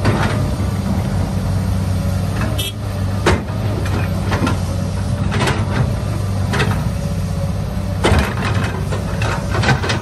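A steady, low engine-like rumble, with scattered sharp clicks and scrapes as a plastic toy excavator is worked through sand.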